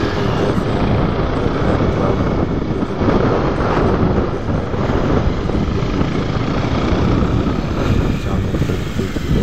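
Wind buffeting the microphone of a moving motorcycle, with the bike's engine running underneath.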